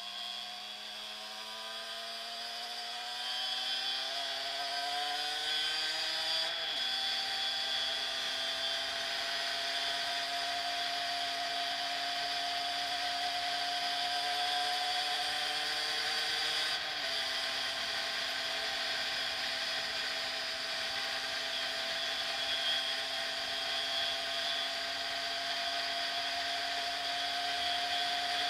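2011 Derbi X-Treme motorcycle engine accelerating hard, its buzzy note rising steadily, dropping at gear changes about seven seconds in and again about seventeen seconds in, then climbing slowly again.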